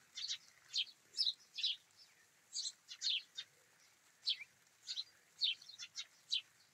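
A flock of sparrows chirping: a steady run of short, high chirps, one after another and sometimes overlapping.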